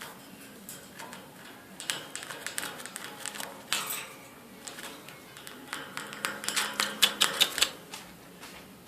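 Rapid, sharp clicking and tapping in two bursts, a couple of seconds in and again around seven seconds, from a blue Indian ringneck parakeet's beak striking its cage.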